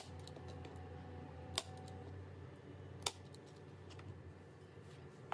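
Three sharp clicks about a second and a half apart, a hand staple gun (tacker) snapping as it fires.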